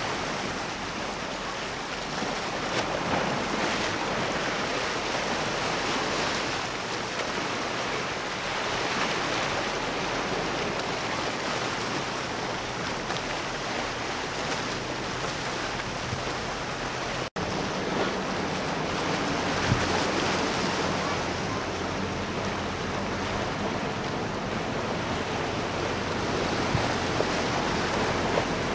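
Wind on the microphone and surf washing in a steady rush. There is a brief dropout about two-thirds of the way through. After it a faint low engine drone from a sportfishing convertible boat running past joins the wash.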